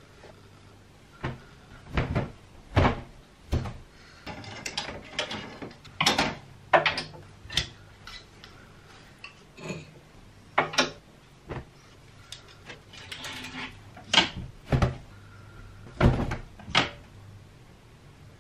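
Household handling sounds: a run of irregular sharp knocks and clacks, like cupboard doors and objects being set down, with rustling between some of them.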